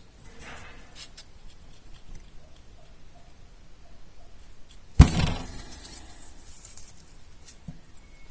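Faint handling of small key parts, then one sharp knock about five seconds in that rings briefly: the metal key blade being tapped home into a new remote key shell, where it fits stiffly.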